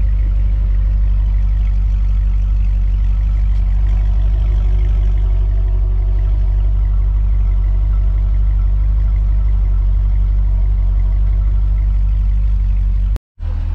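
Chevrolet C6 Corvette's V8 idling steadily, heard right at its quad exhaust tips as a low, even exhaust note. The sound cuts out for a moment near the end.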